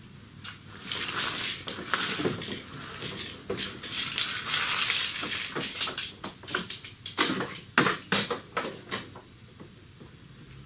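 Metal tools and parts clinking and scraping as they are handled, with a longer scraping rush about halfway through and a few sharp metal knocks after it.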